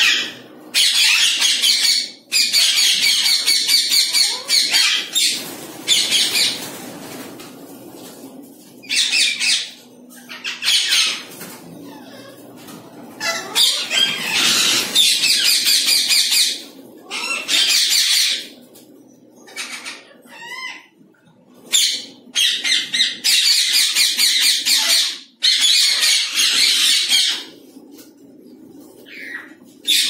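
A flock of green ring-necked parakeets screeching in loud, harsh bouts of a second or a few at a time, one after another with short lulls between, while some birds flap about.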